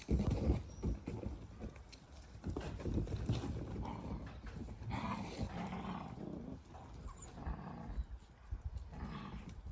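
Dalmatian puppies scuffling and playing, with irregular knocks, thumps and scuffs of paws and bodies, and brief dog noises in between.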